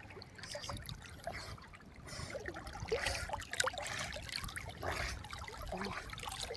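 River water trickling and splashing irregularly, with a run of small splashes that grows louder from about two seconds in.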